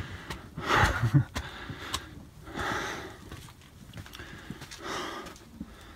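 A person breathing hard from climbing a long flight of stone stairs, a heavy breath about every two seconds, with a few footsteps on the steps.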